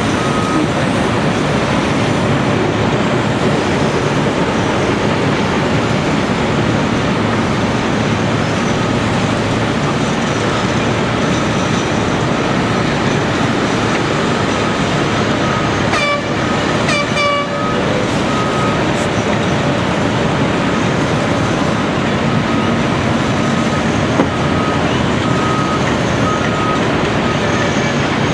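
Steady din of heavy machinery on a construction site, the Cat 312CL excavator's diesel engine working among it. A faint beep repeats on and off, and a brief horn-like toot sounds about sixteen seconds in.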